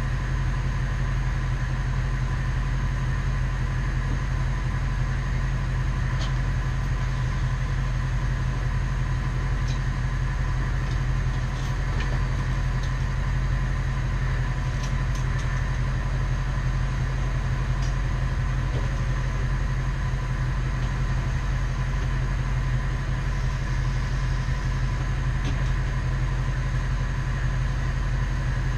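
1996 bucket truck's engine running steadily, with a low hum, a constant higher tone and a few faint ticks.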